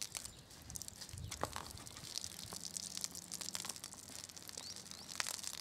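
Hands squeezing and rubbing a wet, soapy horse tail: faint wet squelching and the fine crackle of shampoo foam. A bird chirps faintly near the end.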